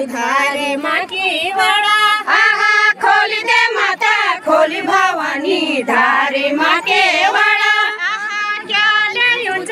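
Women singing a Garhwali jhumailo folk song together, a melody that rises and falls in short phrases with brief breaks between them.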